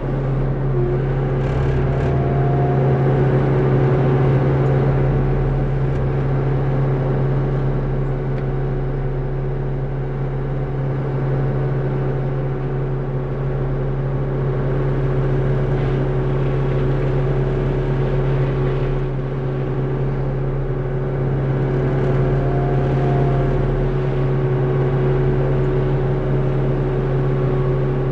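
Diesel engine of a John Deere 60P mini excavator running steadily with a constant drone, driving its forestry mulcher attachment.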